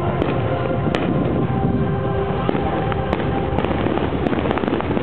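Fireworks display: a dense, continuous rumble of bursting aerial shells, with many sharp bangs and crackles.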